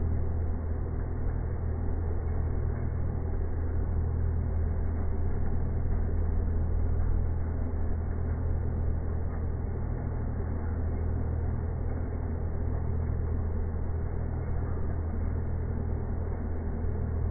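CNC lathe turning a steel bar with a carbide insert: a steady low hum with a rumbling noise above it, unchanging throughout.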